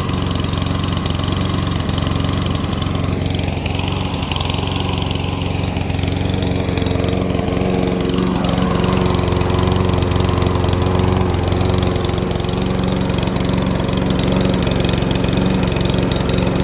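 Briggs & Stratton OHV single-cylinder engine on a Saber Edge walk-behind lawn mower, running steadily at an even speed.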